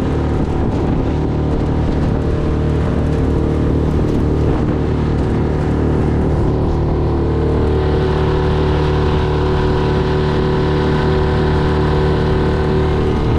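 Yamaha F6 single-cylinder four-stroke outboard running steadily at part throttle during its break-in, its noisy drone resonating through the small aluminium canoe. From about eight seconds in the tone turns a little brighter.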